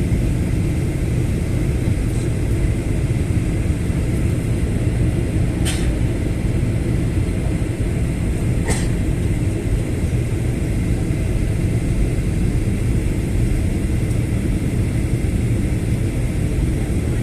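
Steady low rumble of an airliner in flight on its descent, the drone of engines and rushing air, with two short clicks about six and nine seconds in.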